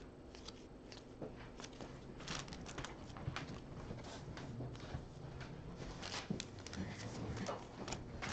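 Trading cards handled at close range: a stack of baseball cards flipped through and shuffled between the hands, making soft, irregular clicks and rustles, with the foil pack wrappers rustling near the end.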